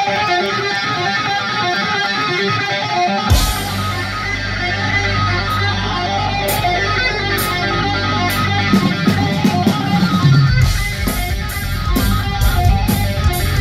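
Live instrumental space-rock band: a fast repeating guitar and keyboard pattern, joined about three seconds in by bass and a cymbal crash. Near the end the full drum kit comes in, with cymbal hits about twice a second.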